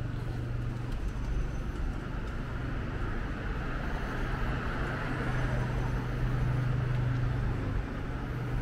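Road traffic on a city street: motor vehicles running and passing, a steady engine hum under tyre and road noise that swells slightly midway.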